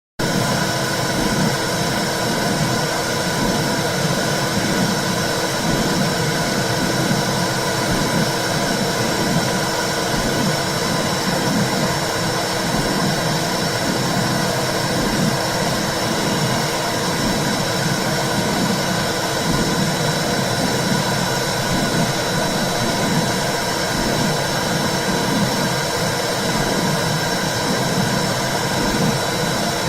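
Womb sound: a steady whooshing hiss with a low whoosh that pulses over and over underneath.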